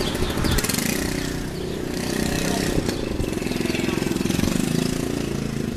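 An engine running steadily with a fast regular pulse, a little louder past the middle.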